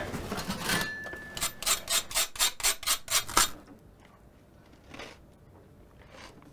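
A knife scraping across dry toast in a quick run of about ten even strokes, roughly five a second, then stopping; two faint soft crunches follow.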